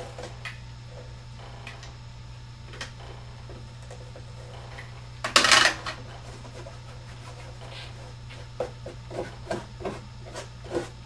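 Cardboard being handled and pressed into place: light rubs and taps, one loud half-second scraping rasp about five seconds in, and a run of small knocks near the end, over a steady low hum.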